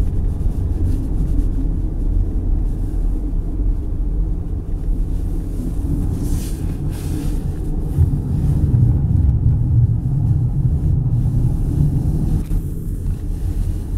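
Car driving on a snow-covered road, heard from inside the cabin: a steady low rumble of engine and tyres that grows louder about eight seconds in.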